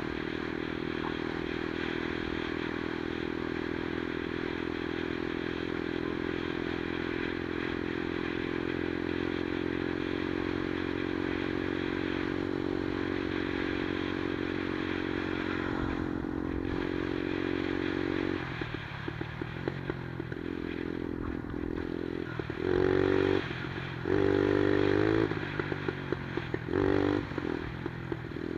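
110cc single-cylinder four-stroke engine of a Monkey-style minibike running at a steady note, then from about two-thirds through the throttle is worked in short bursts: three brief louder revs with dips between.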